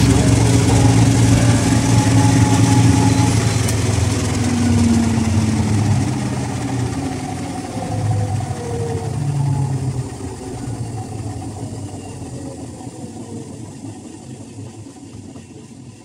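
Whirlpool front-loading washing machine with a pillow in the drum, running down at the end of its spin cycle: a steady motor hum and whine that slides down in pitch and fades steadily as the drum slows.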